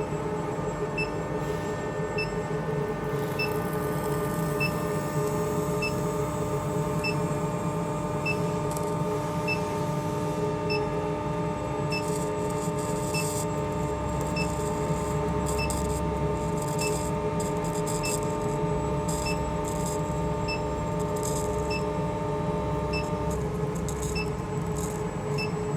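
High-frequency induction heating machine running with a steady multi-tone electrical hum, one tone dropping out near the end, and a short high beep repeating about every second and a bit.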